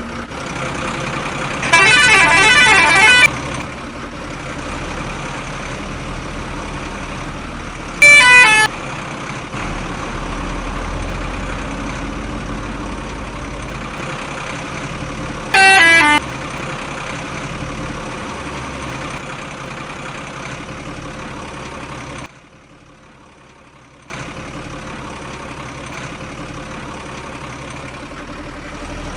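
A vehicle horn honks three times over a steady engine-like drone. The first blast is long and warbling, the next two are short and loud, and the drone drops out briefly near the end.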